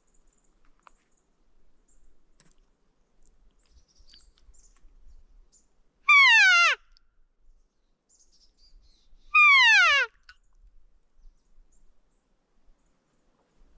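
Two elk cow calls (mews), about three seconds apart, each a short nasal note that slides steeply down in pitch. Faint rustling lies between them.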